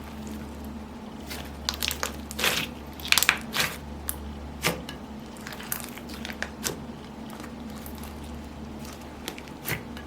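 Slime being kneaded and pressed by hand, with irregular sticky squishes, crackles and pops, busiest in the first half, over a faint steady low hum.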